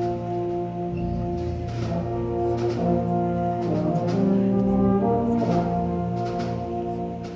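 A school symphonic band playing sustained, brass-led chords that change partway through, with light strokes about once a second. It grows softer near the end.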